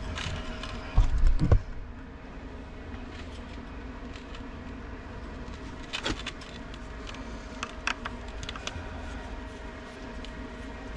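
A few heavy thumps about a second in as the 2.25 HP pool pump is handled, then scattered light clicks and taps of hands and tools working at the pump motor's wiring, over a faint steady hum.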